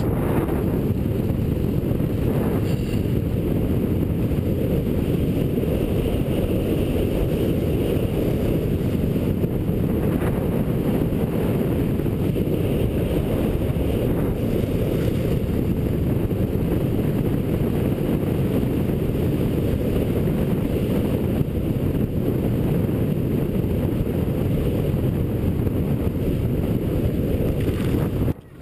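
Wind buffeting the microphone of a camera carried by a cross-country skier gliding along a groomed track at speed: a steady low rumbling rush that cuts off suddenly near the end.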